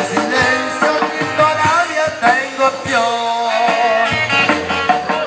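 Music: a song with a singing voice over a steady beat.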